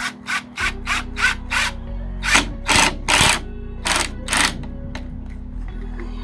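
Cordless drill driving screws through a wooden strip into a wooden frame. First a quick string of short trigger pulses, about three a second, then several longer runs, stopping about four and a half seconds in. Background music plays underneath.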